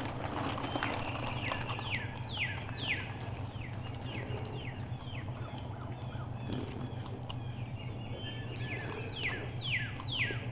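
Songbirds singing: short, clear notes that slide down in pitch, repeated in quick bursts about two seconds in and again near the end, over a steady low hum.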